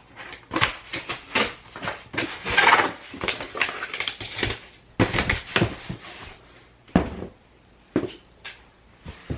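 Small hard household objects clattering and knocking as they are handled and moved about, with a longer rustling scrape about two and a half seconds in.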